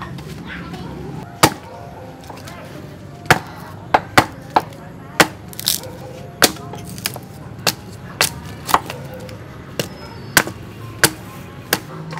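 Cleaver chopping into a fibrous plant stalk against a concrete block: sharp, irregular blows, about one or two a second.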